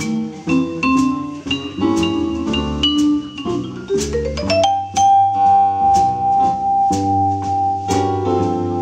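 Live jazz quartet: vibraphone played with mallets over keyboard, double bass and drums. About four seconds in a fast rising run leads into one long held note that lasts until near the end.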